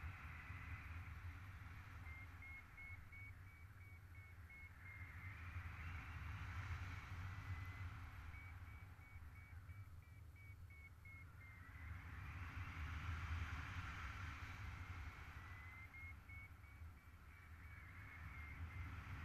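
Wind buffeting the camera microphone in flight, a steady low rumble with gusts that swell and fade, over a paragliding variometer beeping rapidly at a high pitch in three spells, the pitch rising slightly as each spell begins: the sign that the glider is climbing in lift.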